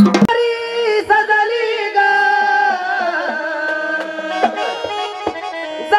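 Marathi gondhal devotional music: the drumming breaks off just after the start, and a melodic line of long, held notes follows, the pitch bending gently, with a few light strikes.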